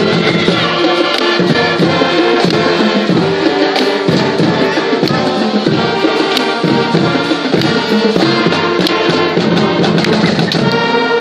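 High school marching band playing the school's alma mater, with brass holding long chords over drum strokes.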